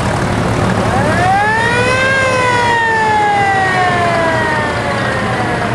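Fire truck siren winding up over about a second, then slowly winding back down over the next three seconds, over the low running of passing trucks' engines.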